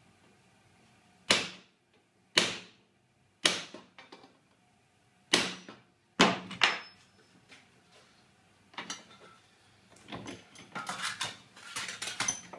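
Hammer striking a centre punch to mark drill-hole positions on a steel trunking lid: five sharp strikes over about five seconds. Near the end, a run of lighter knocks and clatter as the steel piece is handled into the bench vise.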